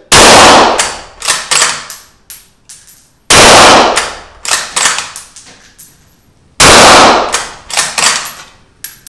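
Three shots from a moderated Ruger American Ranch bolt-action rifle in .223, about three seconds apart, each followed by a short echo. Between the shots come the sharp metallic clicks and clacks of the bolt being cycled.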